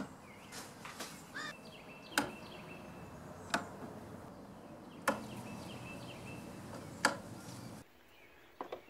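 Sharp single clicks, one every second or two, from the wall toggle switches on a newly wired three-gang box being flipped.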